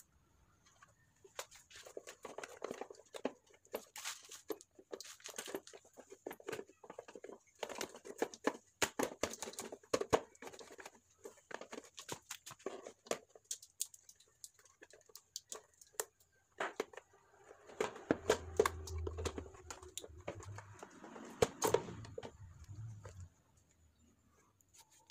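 Plastic clicks, knocks and rattles as the stock air cleaner box of a Suzuki Raider 150 Fi is worked loose by hand and lifted out of the frame, in irregular scattered bursts. A low rumble joins in for a few seconds near the end.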